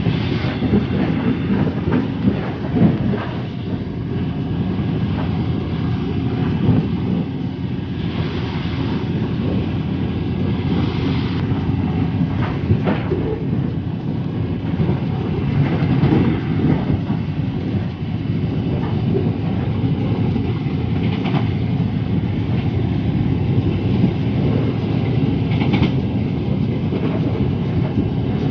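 Taiwan Railways passenger train running along the track, heard from inside the moving carriage: a steady rumble of wheels on rail with scattered sharp clacks over rail joints.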